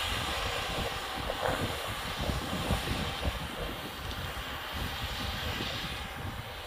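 Yanmar YH850 combine harvester's diesel engine running steadily, with wind buffeting the microphone.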